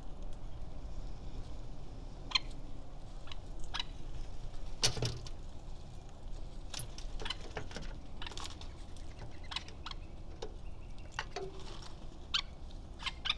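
Scattered short clicks and chirps from nanday conures feeding at seed feeders, one or two a second at irregular spacing, with one heavier knock about five seconds in.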